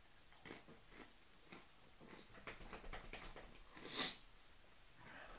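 Faint crunching of a cracker being bitten and chewed, a run of small crisp crackles, with one louder short breath about four seconds in.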